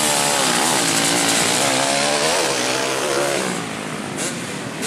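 Two-stroke Kawasaki Ninja engine in a grasstrack dirt bike, revved up and down through its exhaust, its pitch rising and falling several times before settling lower near the end.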